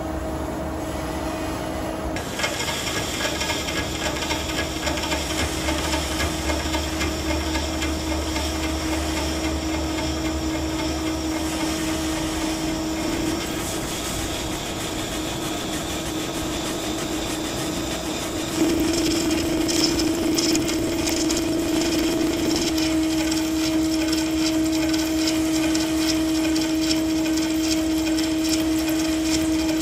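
CNC lathe turning a steel drill-rig saver sub while the tool cuts a groove into it, a steady machine whine under the hiss and scrape of the cut. The cutting noise starts about two seconds in and grows louder for a few seconds about two-thirds of the way through.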